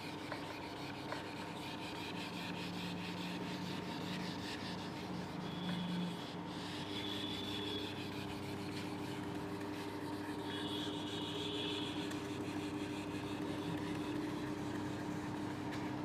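Felt whiteboard duster rubbing across a whiteboard, wiping off marker writing, over a faint steady hum.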